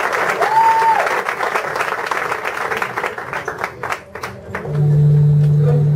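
Club audience applauding, with a short whistled note about half a second in, the clapping dying away by about four seconds in. Then a steady low held tone starts near the end and carries on.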